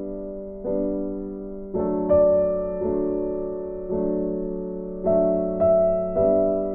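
Background music: slow, gentle piano, a note or chord struck about once a second and left to ring and fade.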